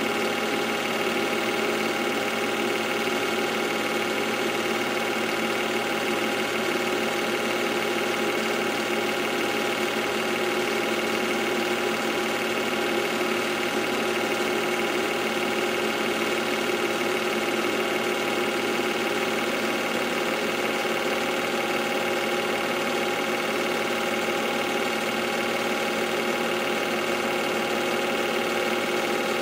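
Film projector running: a steady mechanical hum with several fixed tones and an even level, unchanged through the whole stretch.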